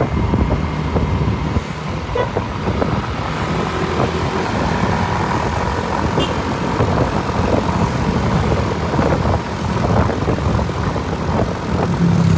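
Roadside traffic: motor vehicles passing with a steady, loud engine and tyre rumble.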